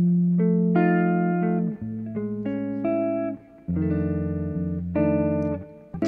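Solo jazz guitar on an archtop guitar, playing a slow ballad in chord-melody style: chords struck and left to ring, with short breaks between phrases.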